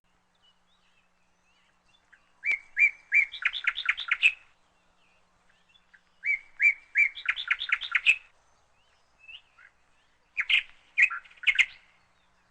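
A songbird singing three separate phrases, each opening with a few separate chirps and running into a fast string of repeated notes, with a single short call between the second and third.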